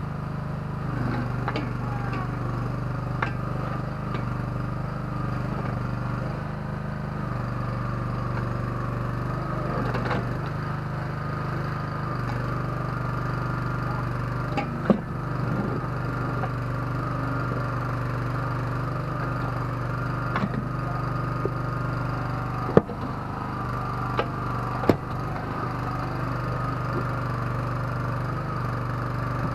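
Kellfri ATV backhoe's small engine running steadily, its note shifting between two pitches several times. A few sharp knocks or clanks stand out above it, the loudest about two-thirds of the way in.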